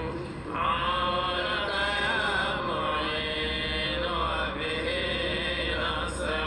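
A man chanting in long, drawn-out notes that slowly rise and fall in pitch, over a steady low hum.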